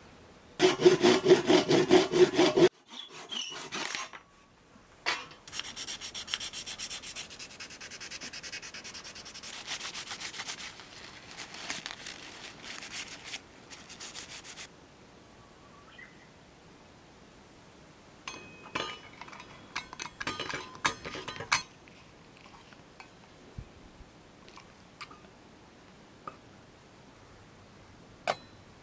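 A fine-toothed handsaw cutting quickly through a small piece of wood held in a vise, then a wooden knob being rubbed down by hand in two long spells. Near the end a single light click as a metal lid is set onto a stainless steel cup.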